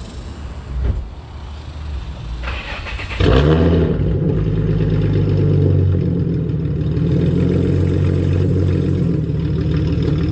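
Infiniti G35's 3.5-litre V6 starting: a short crank, then it catches about three seconds in and settles into a steady idle.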